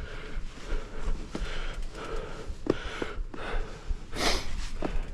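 Heavy, rhythmic breathing of a mountain biker panting on an uphill climb, with a few sharp knocks and a louder rushing burst about four seconds in.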